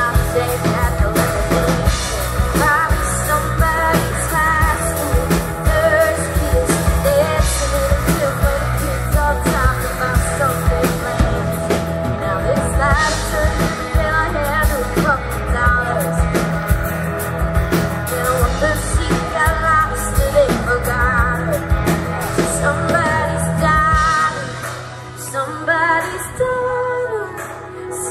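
Live band amplified through a PA: a woman singing lead over guitars and a drum kit. About 24 seconds in, the drums and bass drop out and the singing carries on more quietly.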